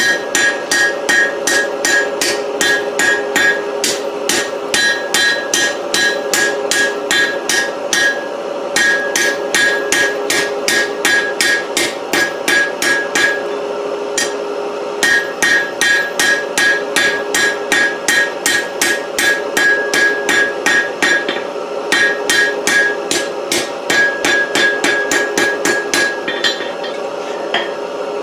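Blacksmith's hammer striking hot 4140 steel on an anvil, about four quick blows a second in runs of several seconds with short pauses, each blow with a ringing tone. The hammering is rounding and smoothing the taper of a round punch. It stops near the end, leaving a steady hum.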